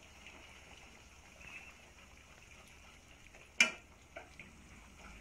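Spatula stirring chicken and potatoes in a simmering sauce in a frying pan, over a faint steady bubbling hiss. About three and a half seconds in, the spatula gives one sharp clack against the pan, then a couple of lighter taps.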